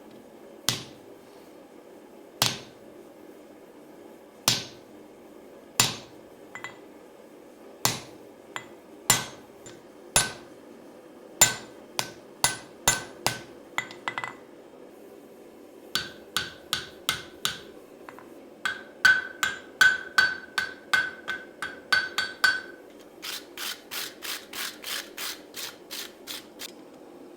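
Blacksmith's hand hammer striking hot steel on an anvil while forging an adze, over a steady low hum. Single heavy blows come every second or two at first, then faster runs with a ringing tone from the anvil in the middle, and near the end a quick series of lighter taps, about four a second.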